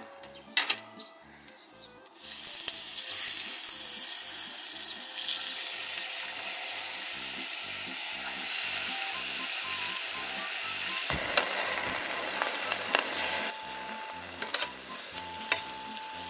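Spicy buldak-sauce-marinated bulgogi sizzling loudly on a hot grill. The sizzle starts suddenly about two seconds in and eases off near the end, with a few clicks over it.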